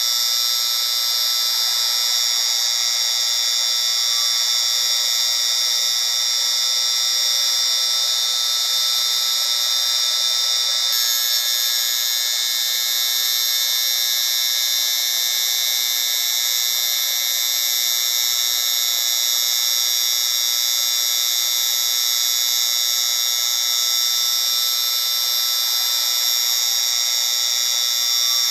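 Tinnitus-masking noise: a steady high-pitched hiss with several whistling tones in it and no low end. About eleven seconds in, the tones shift slightly and a faint low hum joins.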